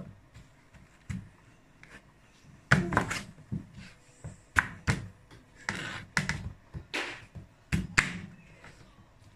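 Chef's knife cutting through raw rutabaga and knocking on a plastic cutting board: a series of irregular knocks, the loudest about three seconds in and again near the end.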